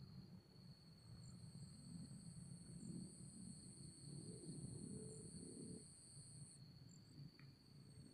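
Faint, steady chirring of insects such as crickets, two high even tones, the higher one stopping about six and a half seconds in, over a faint low rumble.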